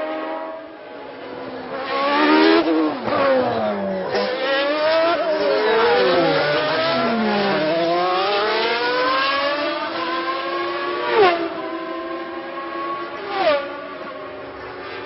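1991 Formula One engines at high revs, among them the McLaren's Honda V12, with more than one engine heard at once as their pitches rise and fall and cross. Sharp pitch drops at gear changes come about 11 and 13.5 seconds in.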